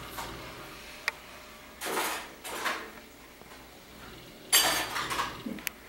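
Scattered clinks and rattles of hard objects being handled: a single click about a second in, a softer rattle around two seconds, and a louder, bright rattle about four and a half seconds in.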